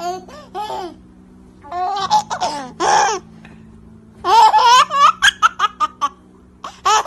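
A baby laughing: three bouts of high-pitched, squealing giggles with short pauses between, and a brief last laugh near the end.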